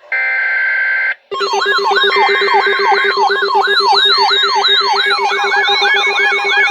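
Emergency alert tones: a burst of about a second of digital data tones (an alert header), a brief gap, then a loud layered electronic alarm of fast repeating falling siren sweeps over warbling high tones and a steady low tone.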